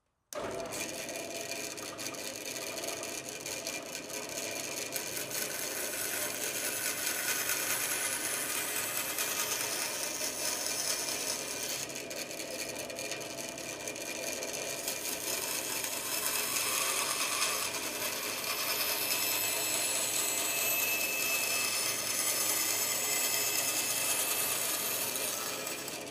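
Bandsaw running with its blade cutting through a plywood board, the cutting noise swelling and easing as the board is fed in.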